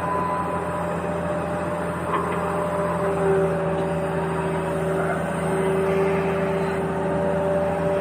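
Remote-control toy excavator running: a steady mechanical hum with several held tones that fade in and out.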